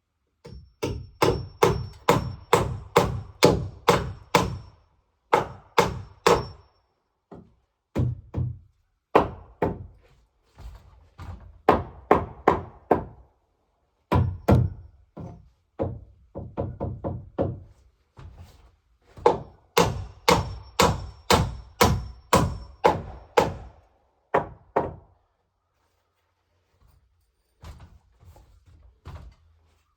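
Repeated sharp knocks, about three a second, in runs of several strikes broken by short pauses.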